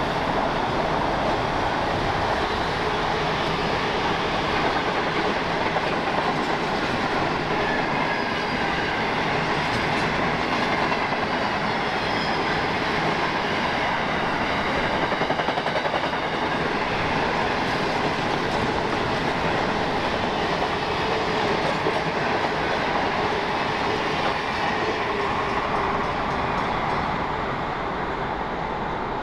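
Freight train wagons rolling past at speed, wheels clattering steadily on the rails with faint, wavering wheel squeal at times, the noise dying away near the end as the train clears.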